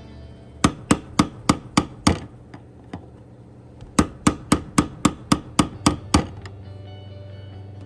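Hammer striking metal in two quick runs, about three to four blows a second: six blows, a pause of about two seconds, then nine more.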